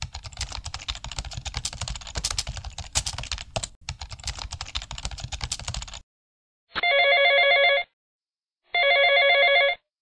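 Rapid clacking of keys, like typing, for about six seconds. Then it stops and a phone ringtone rings twice, each ring about a second long with a trilling, multi-tone ring.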